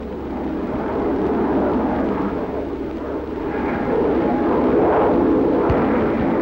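Jet aircraft flying past: a steady rushing engine noise that swells louder in the second half.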